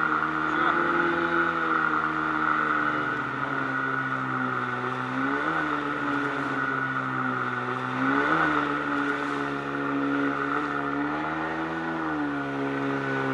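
Outboard motor with a water-jet unit driving an inflatable boat upstream through river rapids, running steadily at high revs. Its pitch rises and falls briefly twice, about five and a half and eight seconds in.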